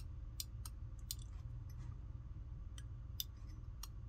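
Faint, irregular small clicks of an Instant Pot Duo's switch contact assembly being handled and flexed while its contacts are checked for dirt, over a low steady hum.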